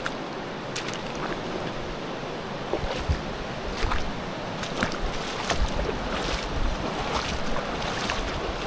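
Steady rush of a flowing river, with scattered short splashes that come more often from about three seconds in, and low buffeting of wind on the microphone.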